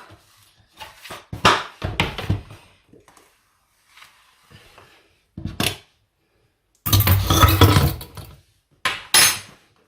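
Kitchen dishes and utensils clattering as a bowl and pan are handled and set down: several separate knocks and clinks, with a louder, longer rattle about seven seconds in.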